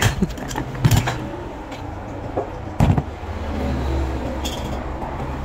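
Hand rivet gun being squeezed to set a blind rivet in an aluminium screen-frame piece: a few sharp metallic clicks about a second in and a louder snap near three seconds. A steady low rumble runs underneath.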